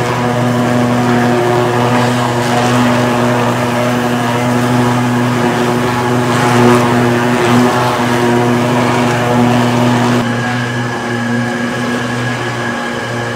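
A leather scraping and stretching machine ('ras întins') with a rotating bladed cylinder, running with a loud, steady hum while a dried sheepskin is fed through it. About ten seconds in, the hiss thins and a thin higher whine comes in.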